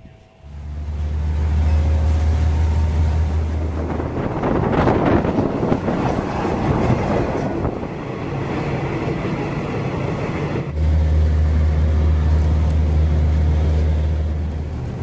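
A vehicle running with a steady deep rumble that starts suddenly about half a second in. The rumble gives way to a rougher, broader noise around four seconds in and returns near eleven seconds.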